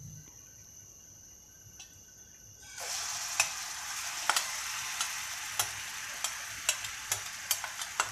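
After a quiet start, yogurt-and-lemon-marinated chicken pieces hit hot oil in a frying pan about three seconds in, and a steady sizzle starts suddenly, with frequent sharp pops of spattering oil. The oil is at frying temperature.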